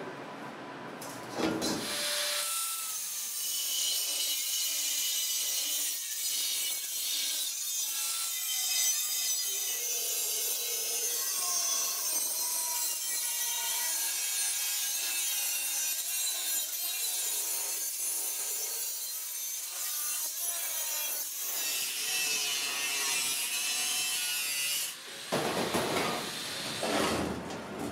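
Angle grinder with a cutting disc slicing through a thin steel tank shell: a steady, high grinding hiss with a faint wavering whine under it. Near the end the cutting stops and a few louder, lower noises follow.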